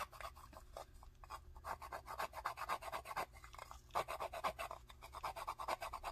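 Pastel stick scraped back and forth against the fine steel mesh grater of a round pastel sharpener: a quick, even run of rasping strokes.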